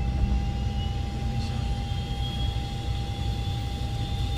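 Cockpit sound of an ATR turboprop during engine start: a steady low rumble with a steady tone over it, and a faint whine that rises slowly in pitch from about a second in.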